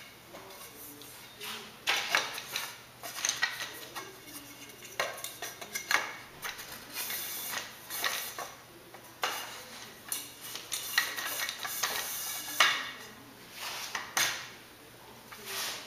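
Aluminium tubes and frame connectors clinking and knocking against each other and the bench as they are handled and fitted together, in irregular clanks with short metallic ringing.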